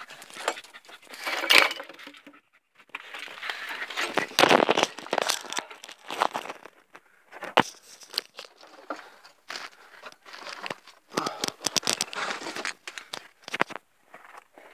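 A person crawling over loose stones and rubble: irregular scraping, crunching and rustling, with a couple of sharp knocks.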